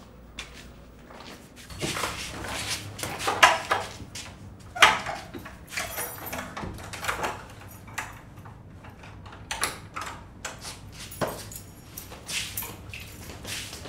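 A wooden door being handled: scattered knocks, clicks and rattles every second or two, with people moving about between them.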